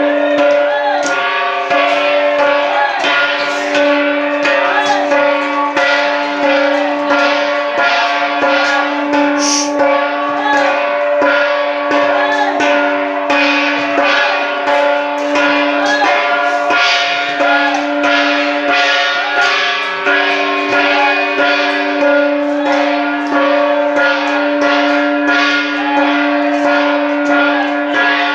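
Metal bells ringing and jingling nonstop in a quick, even rhythm over sustained ringing tones, the bell sound of a Hmong shaman ceremony (ua neeb).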